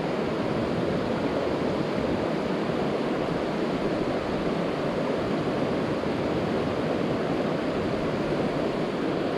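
Shallow, rocky creek running over cobbles: a steady rush of water.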